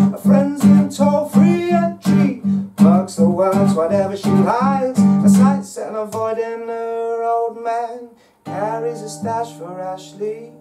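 Steel-string acoustic guitar strummed in a fast, even rhythm of about four strokes a second. About six seconds in the strumming stops and chords are left to ring, with a brief gap and a few more ringing chords near the end.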